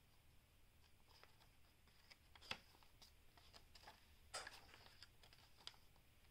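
Faint rustles and soft taps of thick paper pages being turned in a handmade junk journal. There is a sharp tap about two and a half seconds in and a longer rustle a little before the end.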